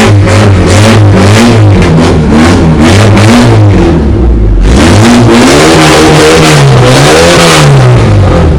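Volkswagen AP four-cylinder engine, loud and rumbling, revved in repeated throttle blips so its pitch rises and falls again and again. About four seconds in it drops briefly to a lower, duller note before revving again.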